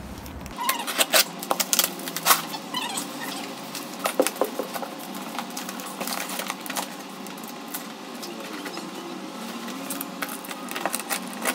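Scissors cutting the plastic packing straps on a cardboard parcel: a quick run of sharp snips and clicks in the first few seconds, then the straps and packing tape being pulled off the box with rustling and scraping, and a few more clicks near the end.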